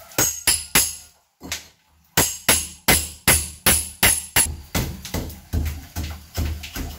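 Hammer striking a steel chisel to chip old mortar and plaster from around a window frame in a masonry wall: sharp metallic clinks, about three a second, with a short pause about a second in.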